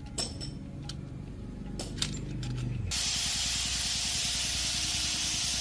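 Scattered clicks and knocks of metal parts being handled, then about three seconds in a loud, steady compressed-air spraying hiss starts abruptly.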